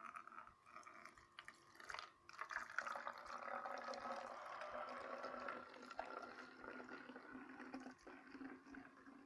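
Homemade borax solution (detergent dissolved in boiling water) being poured into a cologne bottle: a few handling clicks, then a steady trickle of liquid from about two and a half seconds in that thins out near the end.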